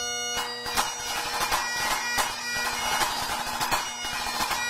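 Great Highland bagpipe playing a tune over its steady drones, accompanied by a pipe band snare drum played with sticks in a fast, dense pattern of sharp strokes.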